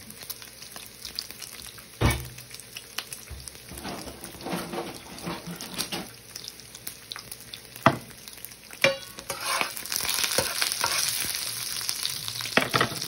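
Bacon sizzling in a nonstick frying pan, with a few sharp knocks, the loudest about two seconds in. For the last few seconds the sizzle grows louder as the bacon is stirred and scraped with a metal slotted spoon.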